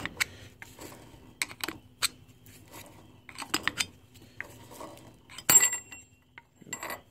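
Steel G0602 lathe spindle and its tapered roller bearing being handled: irregular metallic clicks and clinks, the loudest a little past halfway with a brief ring.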